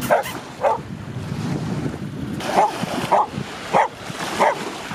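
A dog barking about six times, twice near the start and then four more after a short pause, over small waves lapping at the shore and wind on the microphone.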